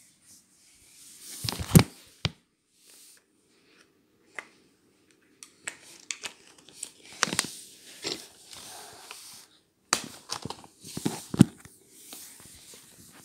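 Handling noises from fitting small sheet covers over model railway crossing signals: irregular crinkling and tearing, with scattered clicks and knocks, loudest about two seconds in and near the end.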